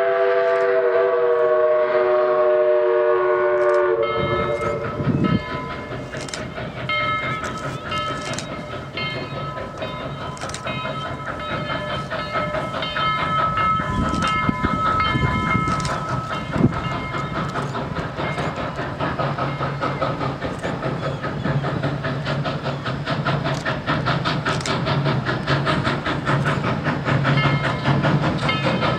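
Southern Railway 4501, a 2-8-2 Mikado steam locomotive, sounds its chime steam whistle in one long blast for about the first four seconds, sagging slightly in pitch. Then a grade-crossing bell rings rapidly over the approaching locomotive's exhaust and running gear, which grow louder toward the end.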